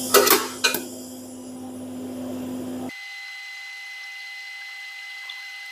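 TIG welding arc and welding machine giving a steady hum, with two sharp clicks in the first second. About three seconds in, the low hum cuts off abruptly, leaving a thin, steady high whine.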